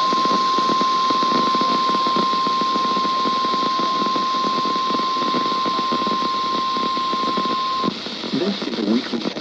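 NOAA Weather Radio 1050 Hz warning alarm tone, sounded as part of a required weekly test. It is a single steady tone over radio hiss that cuts off suddenly about eight seconds in, and a voice starts just after.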